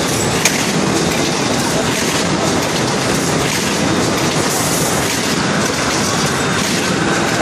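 Automatic corrugated-carton gluing and stitching line running: a steady, dense mechanical clatter of rollers, belts and cardboard sheets being fed through, with one sharp click about half a second in.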